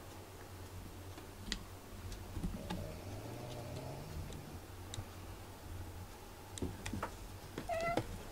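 Scattered light clicks and taps, then a short cat meow near the end.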